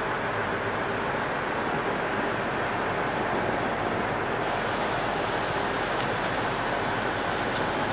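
Steady rush of water and wind from the deck of a small car ferry under way, with a faint low drone from the ship's engine underneath.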